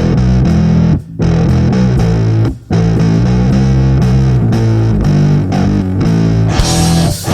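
Doom metal: heavily distorted electric guitar and bass playing a slow, low riff, with two short breaks in the sound about a second in and again at two and a half seconds. Near the end the sound turns brighter and fuller as the rest of the band comes in harder.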